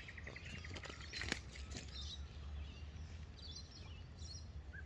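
Outdoor ambience: scattered faint bird chirps over a steady low rumble, with a single sharp click a little over a second in.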